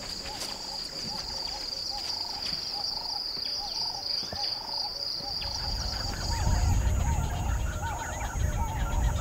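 Natural savanna ambience: a steady high-pitched insect drone that stops about two-thirds of the way through, and a short call repeating about twice a second. A low rumbling noise with faint high ticking comes in over the last few seconds.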